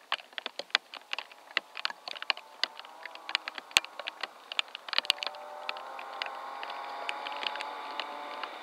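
Distant BMW 325i (E36) rally car's straight-six engine approaching at speed, faint at first and growing louder from about halfway. A scatter of sharp irregular ticks runs through it.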